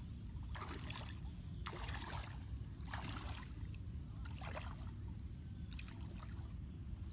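Water splashing as a person wades through shallow pond water, about five splashes roughly a second apart, the later ones fainter, over a steady low rumble.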